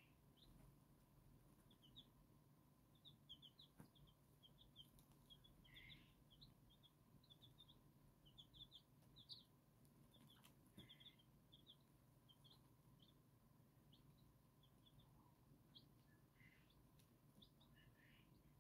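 Silver Laced Wyandotte chicks peeping: many short, high cheeps in quick runs, faint, busiest in the first half and thinning out later.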